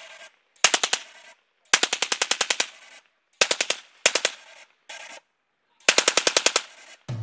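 Tripod-mounted machine gun firing about six short bursts of rapid shots, each burst cut off after half a second to a second and trailing off in an echo.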